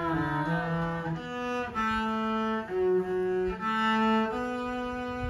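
Cello bowed solo: a slow tune of held notes, changing about once every half second to a second, with a slide down in pitch at the very start.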